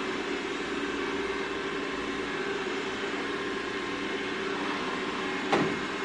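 Xiaomi X10+ robot vacuum-mop running steadily in vacuum-and-mop mode: an even motor and suction-fan hum with a few steady tones.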